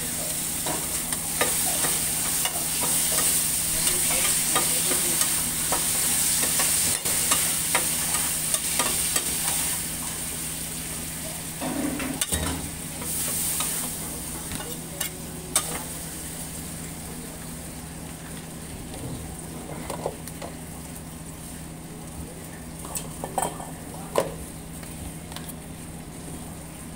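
Beef sizzling on a flat-top teppan griddle, with sharp metal clicks and scrapes from a spatula working the plate. The sizzle is strongest at first and fades over the second half as the griddle is scraped clear. A steady low hum runs underneath.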